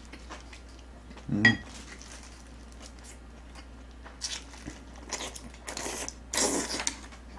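Close-up eating sounds: a few light clicks of spoon and chopsticks, a short vocal sound about a second and a half in, then wet slurping and chewing of a long strip of braised aged kimchi, loudest near the end.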